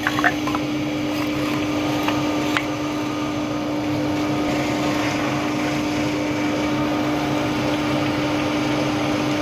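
Double-sided wood planer running, a steady motor hum with one strong held tone, with a few light knocks in the first three seconds.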